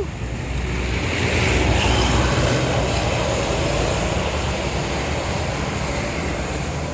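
A large bus driving past: engine rumble and tyre noise, loudest about two seconds in, then slowly easing off.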